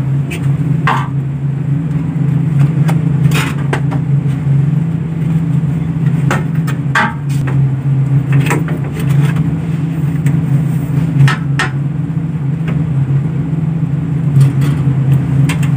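Steady low hum of a running central air-conditioner indoor unit's belt-driven blower, with scattered knocks and scrapes of its sheet-metal cover panel being handled and fitted over the blower belt.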